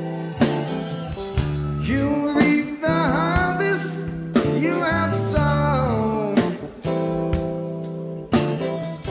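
Live rock band playing: electric guitars and bass hold chords over a drum kit, with sharp drum and cymbal hits throughout. A melodic line bends up and down in pitch in the middle.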